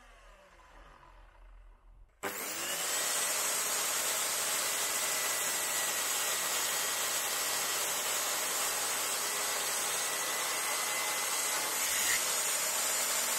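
DeWalt mitre saw: the last of a blade winding down fades out, then about two seconds in the motor starts sharply and runs at full speed with a steady high whine as the spinning blade cuts through a small wooden offcut.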